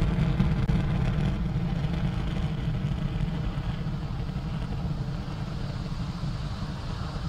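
Falcon 9 first stage's nine Merlin 1D engines heard from the ground during ascent shortly after liftoff: a deep, steady rumble that slowly grows fainter as the rocket climbs away.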